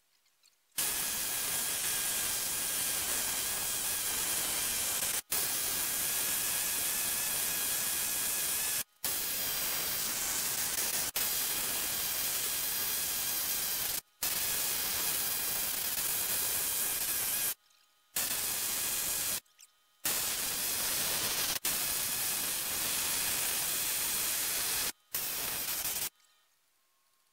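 Pneumatic needle scaler chattering as it knocks paint and rust scale off the cast-iron base of a Bridgeport milling machine. It runs in steady bursts of a few seconds, cut by short pauses as the trigger is released, and stops about a second before the end.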